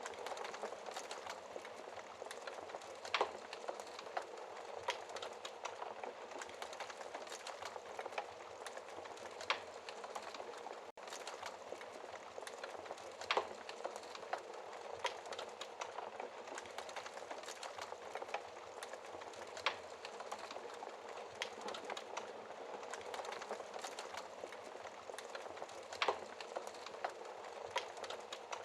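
Wood fire crackling in a fireplace: a steady hiss full of irregular small snaps, with a sharper pop every few seconds. The sound breaks off for an instant a little before the middle.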